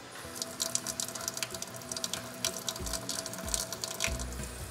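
Water running from a tap and splashing into a sink, a dense crackling spatter; a deeper rush comes in briefly about three seconds in and again near the end.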